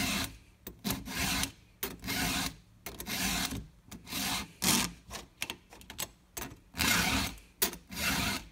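Round file in a file guide stroked across a chainsaw chain's cutter teeth to sharpen them: a rasping stroke about once a second, with short clicks between some strokes.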